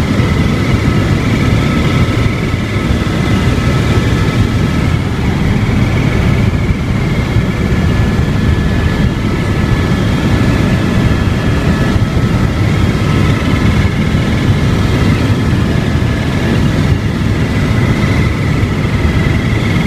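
Helicopter turbine and rotor running steadily: a loud, even drone with a steady high whine over it.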